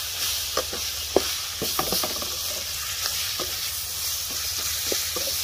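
Tomatoes, onions and spices sizzling in hot oil in an aluminium kadai, while a perforated steel ladle stirs them, scraping and knocking against the pan several times.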